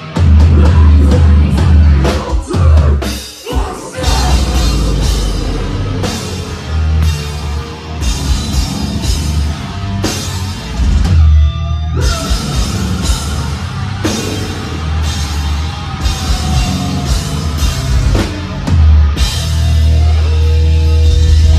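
A metal band playing live, with pounding drums and distorted guitars. The music drops out briefly about four seconds in and again about eleven seconds in before coming back.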